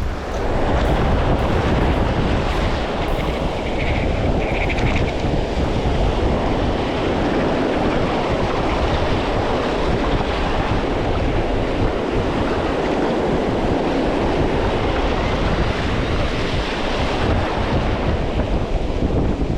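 Gulf surf breaking on the beach, with strong wind buffeting the microphone in a steady rumble.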